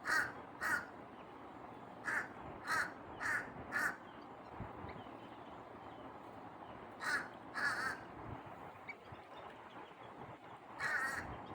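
A bird giving short, harsh calls: a run of six, then a pair, then another pair near the end.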